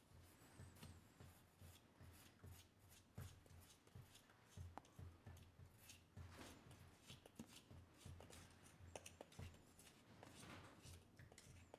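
Faint, scattered scraping and light clicks, near silence overall: copper chloride being mixed into hot water in a small container.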